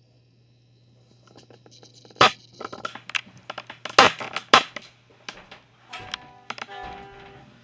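Poinsettia leaves rubbing and crackling against the phone's microphone as it is pushed into the plant, with three loud knocks from the phone bumping the plant. About six seconds in, several steady held tones come in.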